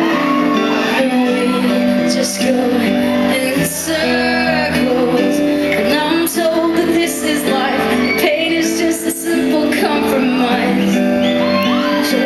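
Live acoustic rock performance: a female lead vocal sung over acoustic guitars, heard from the audience.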